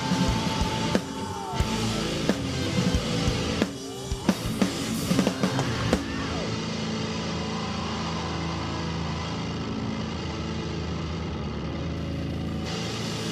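Live rock band ending a song with loud drum hits and fills over held notes. About six seconds in, this gives way to a steady sustained drone of held notes, with the crowd cheering.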